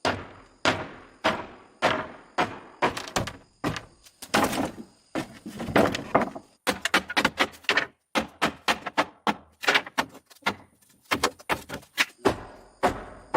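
Repeated irregular knocks and thuds from dismantling work, with a quicker run of lighter taps from about seven to twelve seconds in.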